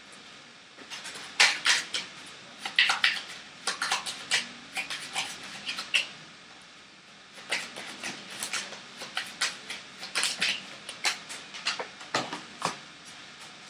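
A deck of tarot cards being shuffled by hand: quick, crisp flicks and clicks of the cards, in two spells with a short pause between them.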